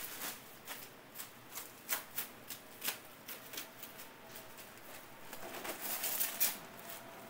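Irregular crisp clicks and crackles, a few a second, growing into a denser crackling run about five to six seconds in: crunchy oranda gangjeong (puffed grain bound with syrup) being handled and worked at the stall.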